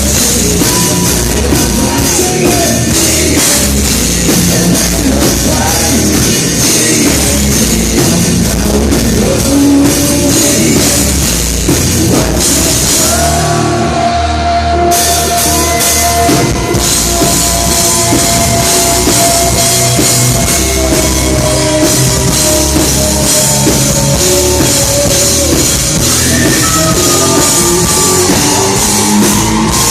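Live hard rock band playing loud, with a pounding drum kit, distorted guitars and held sung lines over them. The cymbals cut out briefly about halfway through before the full band comes back in.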